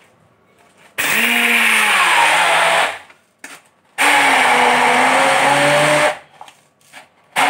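Hand immersion blender running in two bursts of about two seconds each, chopping cherries and sugar in a plastic beaker. Its pitch drops as each burst starts. A short third burst begins near the end.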